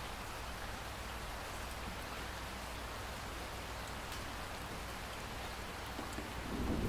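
Steady rain falling, a dense even hiss with the odd sharper drop ticking through it. Near the end a low rumble of thunder begins to build.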